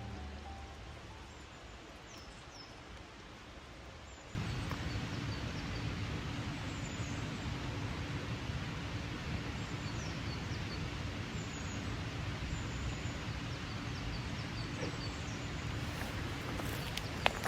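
Small birds chirping in short, high calls over a steady outdoor hiss, which jumps suddenly louder about four seconds in; a few sharp clicks come near the end.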